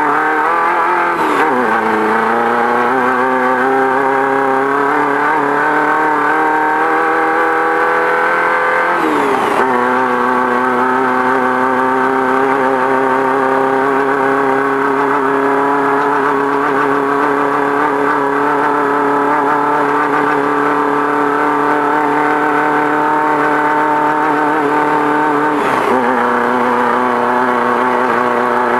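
Off-road race car engine running hard, heard from inside the car. Its note climbs steadily for several seconds, drops suddenly, then holds steady, with another brief dip near the end.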